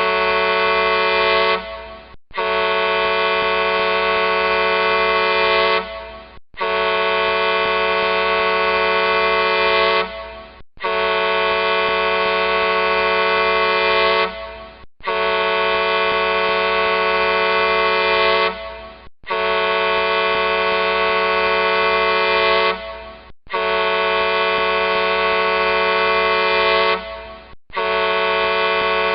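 A large truck horn sounding in long, steady blasts of about four seconds each, one after another with a short gap between them, about seven times.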